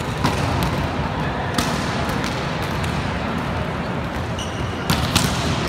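Volleyball thudding off hands and the hard court floor a few times, sharp smacks that echo around a large sports hall, over a steady hall background of voices and shuffling.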